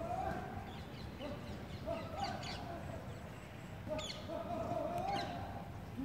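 Outdoor ambience: a steady low rumble with three distant drawn-out calls, each lasting half a second to a second, the last and longest from about four to five seconds in.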